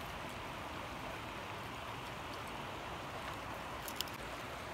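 Steady, even hiss of water moving along the shoreline, with one short light click about four seconds in.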